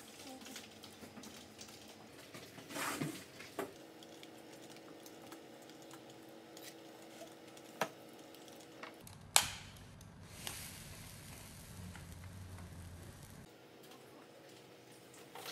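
Quiet office sound: a steady low hum with scattered light clicks and taps from computer keyboards and cutlery on plates, and one sharp click about nine seconds in.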